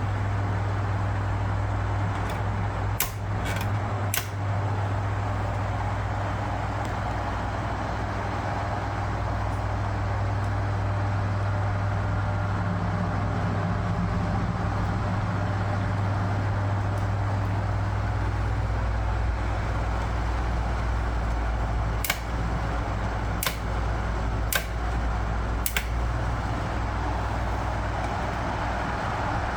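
1973 National F-30AAD table fan running, a steady motor hum under the rush of air from its blades. A few sharp clicks come about three seconds in, and four more, a little over a second apart, a little past the middle.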